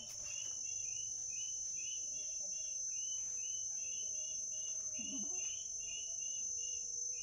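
Insects droning steadily on one high note, with a run of short chirps repeating about three to four times a second.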